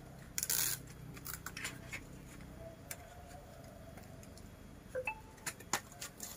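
Scissors cutting through cardboard: one louder cut about half a second in, then scattered smaller snips and clicks.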